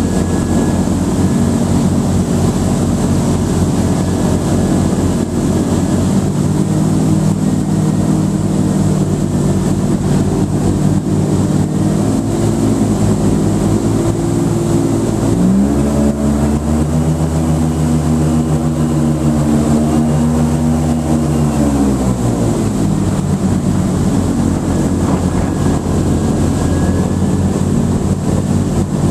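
Airboat's engine and air propeller running steadily under way. About halfway through the revs rise, hold for several seconds, then ease back down.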